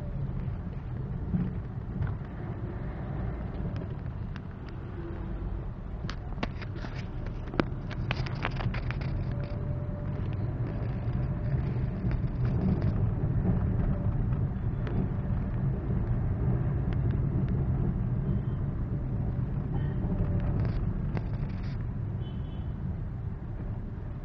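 Engine and road noise heard inside a Maruti Suzuki Swift's cabin while driving: a steady low rumble, louder in the middle stretch, with a cluster of light clicks and rattles about six to nine seconds in and a few more near the end.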